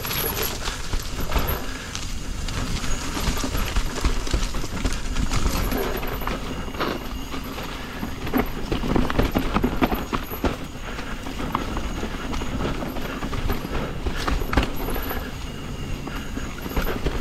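Yeti SB150 full-suspension mountain bike riding a rough dirt trail: tyres on dirt and a steady clatter of irregular knocks and rattles as the bike jolts over roots and rocks, with wind rumbling on the action-camera microphone.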